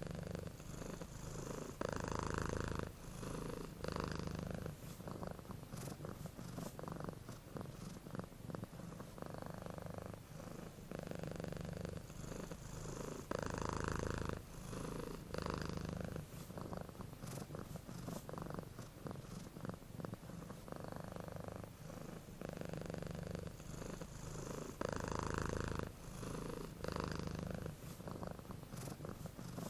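Domestic cat purring continuously, the rumble swelling and easing in even cycles with each breath in and out.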